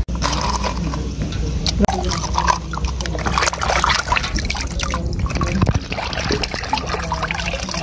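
Water sloshing and splashing as a hand swishes and scrubs a small plastic toy car under the water in a steel basin of muddy water.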